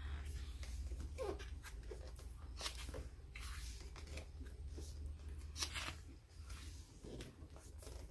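Pages of a photobook being turned and smoothed down by hand: a few soft, brief paper swishes and rustles.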